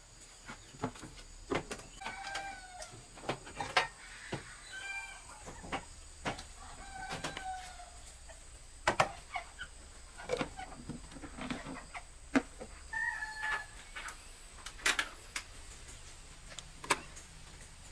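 Chickens calling in several short, slightly falling calls, among sharp clicks and knocks of plastic tubs, lids and chopsticks being handled on a wooden table.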